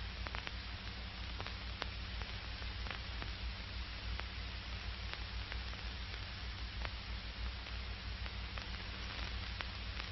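Old optical film soundtrack noise: a steady hiss and low hum with scattered faint crackles and pops.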